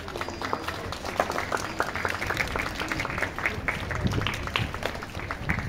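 Crowd applauding: a dense, irregular patter of many hands clapping.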